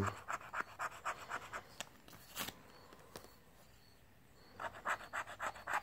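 Scratch-off lottery ticket being scratched with the tip of a pen: quick runs of short, faint scraping strokes that pause about halfway through and start again near the end.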